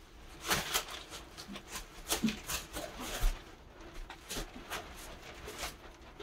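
Water splashing as it is poured from a plastic jug over a child's hands, then wet hands rubbing and splashing over the child's face: a string of short splashes and scrubbing sounds, the loudest in the first few seconds.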